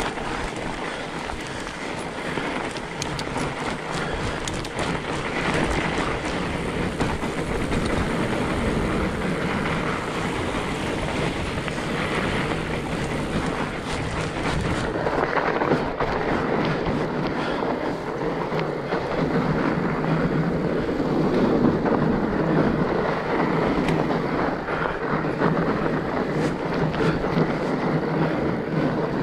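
Fat bike riding along a forest trail: a continuous rumble and rattle from the wide tyres rolling over the ground and the bike shaking over the bumps.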